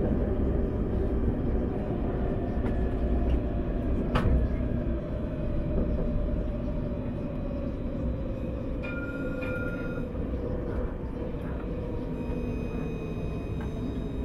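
Paris T3a tram running along its line, heard on board: a steady low rumble with a motor whine that slowly falls in pitch. There is a sharp click about four seconds in and a short electronic beep about nine seconds in.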